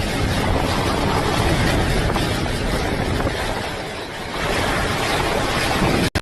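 Hurricane wind blasting the microphone: a dense, steady rushing noise with a heavy low rumble. It eases a little about four seconds in, then cuts off abruptly near the end.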